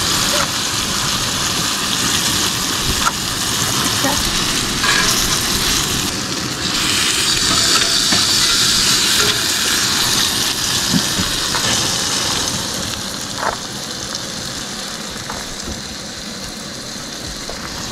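Steaks sizzling as they sear in a hot cast-iron skillet. The sizzle swells about six seconds in, as another steak goes into the pan, then eases off, with a few short clicks along the way.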